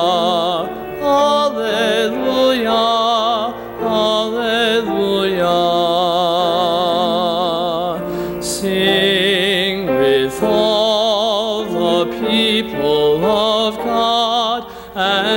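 A man singing a church canticle with a strong vibrato, in long sung phrases broken by short breaths.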